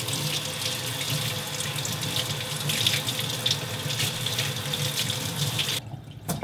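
Kitchen faucet running into a stainless steel sink, the stream splashing over hands rinsing a bunch of enoki mushrooms. The water stops suddenly near the end, leaving a few drips and splashes.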